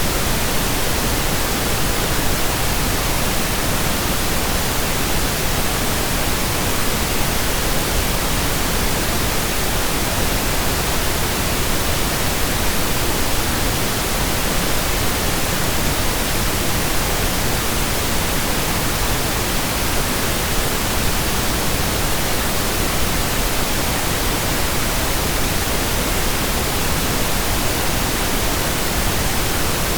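Steady pink noise: an even, unchanging hiss spread across all pitches, with no other sounds.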